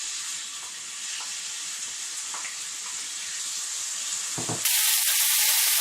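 Chicken frying in hot olive oil in a pan, making a steady sizzle. About four and a half seconds in there is a soft thud, and the sizzle suddenly grows much louder as more chicken goes into the oil.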